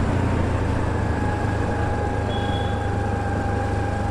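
Steady ride noise from a Honda Activa 6G scooter under way on the highway: a low, even rumble of engine, road and wind, with a faint steady tone above it.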